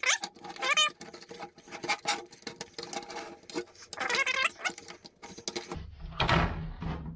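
Metal bungee-cord hooks clicking and scraping against a plastic milk crate as the cords are stretched and hooked into its holes, with a couple of short squeaks. Near the end a hand rubs and presses over the stretched cords.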